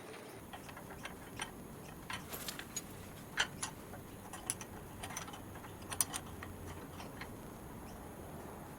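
Irregular small clicks and taps of small metal parts and tools being handled, the sharpest about three and a half and six seconds in.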